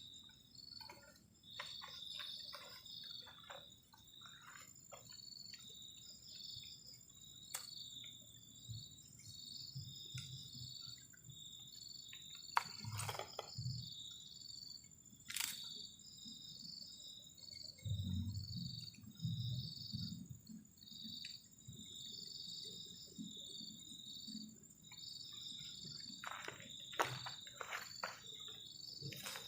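Crickets chirping in quick repeated pulses, over a steady high-pitched insect whine. A few sharp clicks and some low soft thumps come in between.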